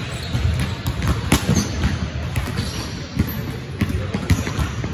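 Basketball bouncing on a hardwood gym floor during play, a string of irregular dribbles and thuds.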